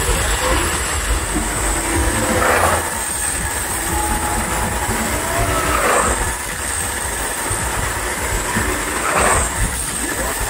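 Motorcycle running hard as it circles the wooden wall of a wall-of-death drum, its engine swelling each time it sweeps past, about every three seconds, over a steady deep rumble.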